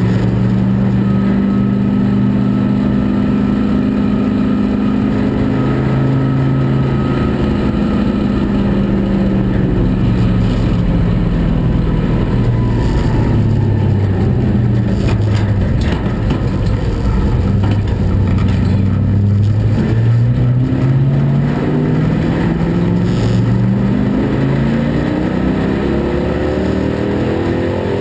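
Corvette LS6 V8 of a race prototype heard from inside the cockpit, running at low to moderate revs. The pitch drops away around the middle, then the revs climb in rising sweeps near the end as it pulls up through the gears.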